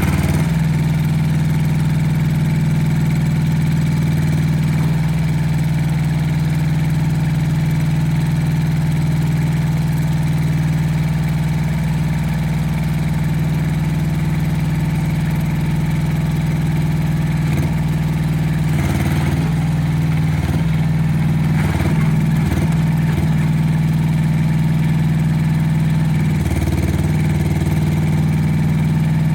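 Rippa R10 Eco mini excavator's engine running steadily and loudly, its note dipping briefly several times in the second half.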